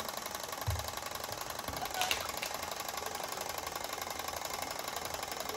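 Wind-up timer of a pop-up shape-matching board game ticking fast and steadily while it runs down, with a single sharp click about two seconds in.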